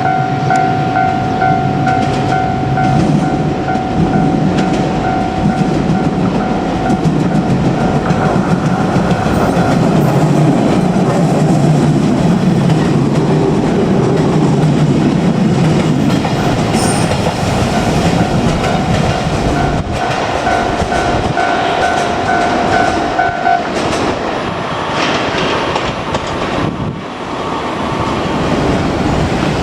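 A Japanese level-crossing warning bell rings its repeating electronic tone while a JR Kyushu 817 series electric train passes over the crossing. The train's wheels rumble and clatter on the rails through the middle of the passage. After the train has gone, the bell stops about 23 seconds in.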